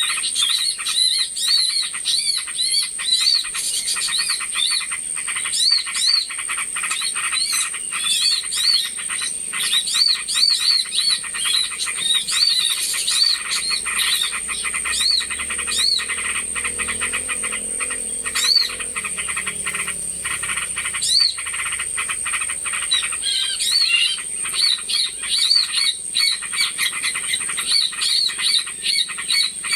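A noisy chorus of many small birds chirping and twittering at once, with quick, rapidly repeated high notes, as in a bird-lure (suara pikat) recording. A thin, steady high whine and a rapid dry clicking run underneath.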